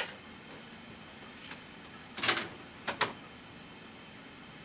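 Keys and mechanism of a restored National Cash Register Model 542 brass cash register being worked. There is a sharp clack at the start and a faint click a second and a half in. A group of metal clacks follows a little over two seconds in, and another about three seconds in.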